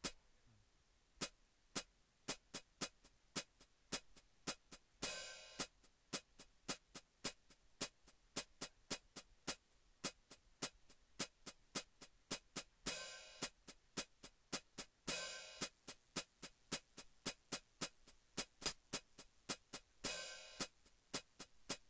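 Sparse electronic soundtrack music: a quiet drum-machine beat of steady ticks, about three a second, with a few short hissing swells.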